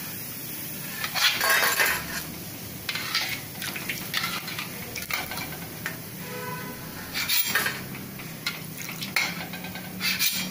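Metal spoon scraping and clinking against the side of a kadhai as crisp-fried noodles are lifted out of hot oil, several separate scrapes and clicks, with the oil sizzling lightly.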